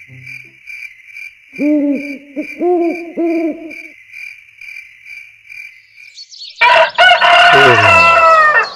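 Night-to-morning sound effects: an owl hooting several times in the first half, over a high, even chirping about three times a second. Then, near the end, a rooster crows loudly for about two seconds, marking daybreak.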